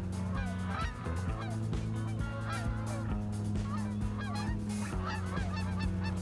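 A flock of geese honking, many calls overlapping, as the birds are chased off a field. Under them runs a steady low drone that shifts pitch a few times.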